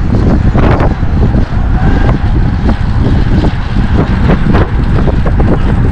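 Wind buffeting the microphone of a camera on a fast-moving bicycle: a loud, steady low rumble broken by irregular gusty surges.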